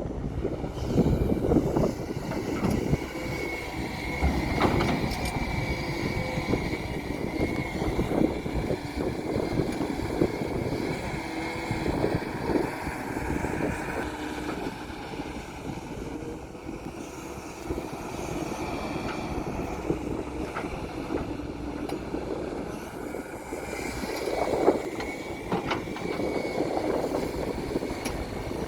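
Heavy earthmoving machinery running, its diesel engines droning steadily, with a high whine that comes and goes and a few short knocks and clanks.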